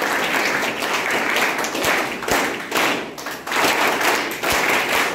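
A small group of people clapping, a steady patter that falls into uneven pulses in the second half.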